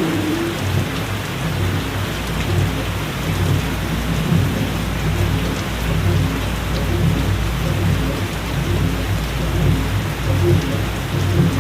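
Steady heavy rain with low thunder rumbling underneath.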